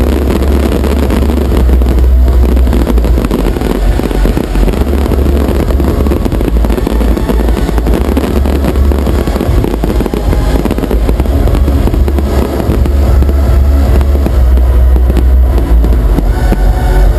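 Fireworks display crackling and bursting over a steady deep rumble, loud enough to overload the recording.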